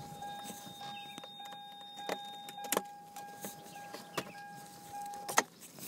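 A steady, high-pitched electronic warning tone sounds in the Toyota Supra MK4's cabin, with a few light clicks and knocks as the driver shifts in the seat. The tone cuts off with a sharp knock about five seconds in.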